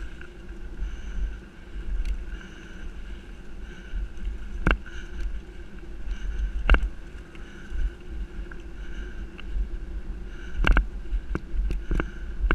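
Bike rolling fast over a forest dirt trail while pulled by a dog: a steady rumble of tyres and wind on the microphone, a faint steady whine underneath, and a few sharp knocks as the bike jolts over bumps, two close together near the end.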